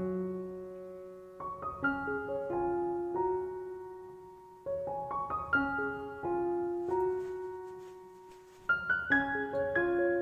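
Background solo piano music: slow phrases of notes that ring and fade, with a new phrase starting every three to four seconds.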